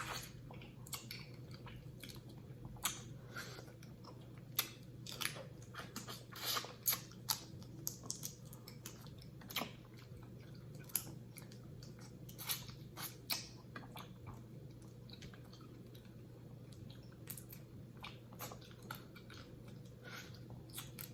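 Close-miked eating sounds: chewing and wet mouth smacking through a seafood boil, with irregular short sharp clicks and smacks, busiest in the middle and again near the end. A faint steady low hum runs underneath.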